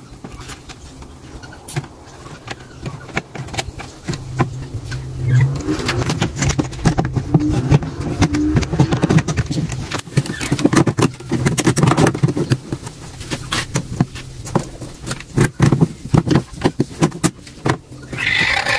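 Plastic top housing and wiring of a washing machine being handled and fitted, with many irregular knocks, clicks and scrapes over a steady low hum.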